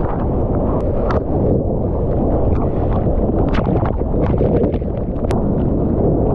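Surf whitewater and spray rushing over a GoPro in its waterproof housing: a steady, muffled low rumble with scattered sharp splash hits on the housing.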